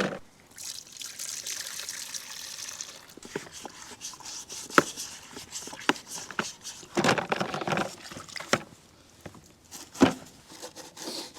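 Liquid trickling and pouring, with scattered sharp clicks and knocks of tools on metal and a louder rush about seven seconds in.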